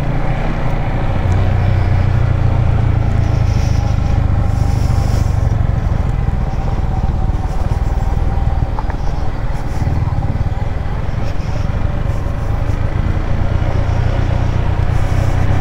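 Yamaha MT-15's single-cylinder engine running with a steady low hum as the motorcycle rides along a broken, gravelly mountain road.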